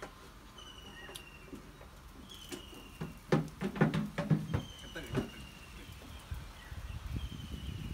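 A bird calls four times, each a short, slightly falling whistle about two seconds apart. Around the middle come a run of sharp clinks and knocks, a spoon against a plate and dishes.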